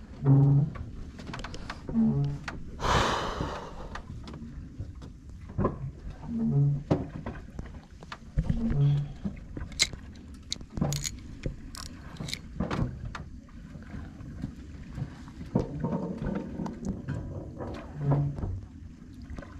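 Small fishing boat at sea: a low steady background with a short low tone repeating about every two seconds. Scattered sharp clicks and knocks, and a short rushing burst about three seconds in.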